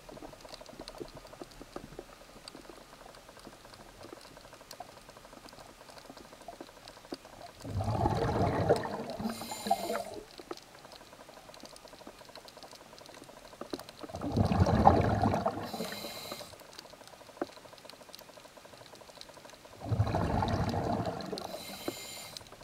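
Scuba diver's breathing heard underwater: three bursts of exhaled bubbles gurgling out of the regulator, about six seconds apart. Each burst ends in a brief high hiss, and a faint crackle runs between them.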